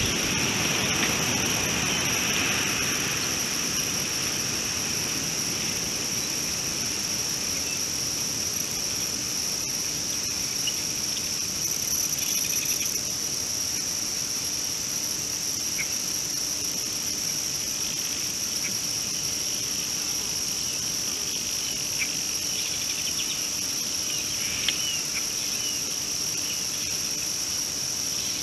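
Steady, high-pitched insect chorus droning without a break. A fainter broad rushing noise fades away over the first few seconds, and a few brief faint chirps or ticks come later.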